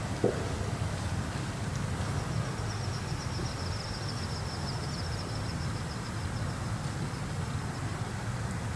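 A small songbird's long, rapid, high-pitched trill lasting about four seconds, over a steady low background rumble, with one short tap about a third of a second in.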